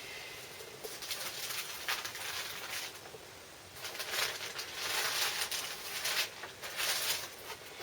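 Rustling and sliding of a vinyl record and its sleeve being handled, in a series of uneven scuffs that grow busier past the middle.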